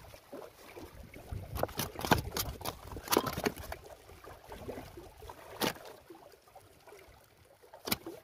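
Irregular sharp taps and clicks of hands and a wet tilapia knocking against rocks as the fish is worked out of a crevice by hand. The clicks come in a cluster for the first few seconds, then singly about midway and again near the end.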